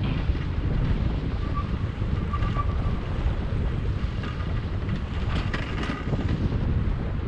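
Wind buffeting the microphone of a camera mounted on a moving bicycle, a steady low rumble from riding along the road.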